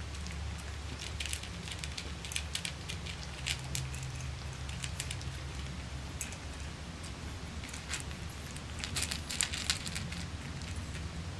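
Boston Terrier puppies eating dry kibble from a metal pan: an irregular string of small crunches and clicks, thickest about nine seconds in, over a low steady hum.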